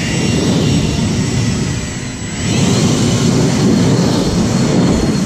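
EGO battery-powered backpack leaf blower running loud, a rushing blast of air with a fan whine. About two seconds in it eases slightly, then the motor spins back up with a rising whine.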